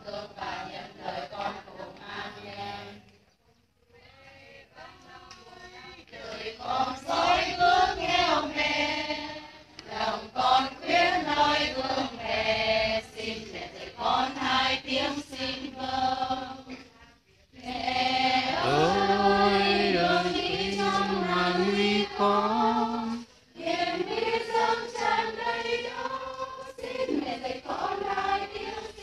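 A group of women's voices chanting prayers together in unison, with short breaks between phrases.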